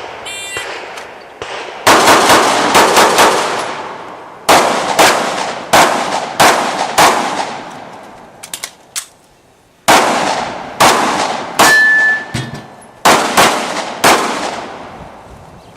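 A shot timer gives a short start beep, then a pistol is fired in rapid strings of two to six shots with short pauses between them, about twenty shots in all. Near the middle there are a few faint clicks, and a short ringing tone sounds among the shots about twelve seconds in.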